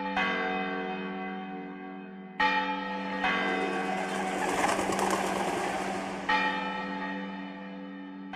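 Church bells ringing, several fresh strikes each followed by a long, slowly fading ring. A rush of noise runs through the middle for about three seconds.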